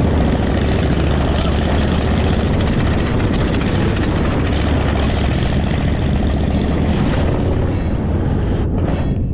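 Motorcycle engine running steadily on the move, with wind rushing past; the drone changes about two-thirds of the way through, and the sound cuts off sharply near the end.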